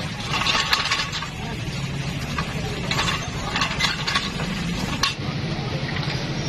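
Repeated light metallic clinks and scrapes from hand tools on steering-rack and undercarriage parts being fitted under a car, over a steady low hum.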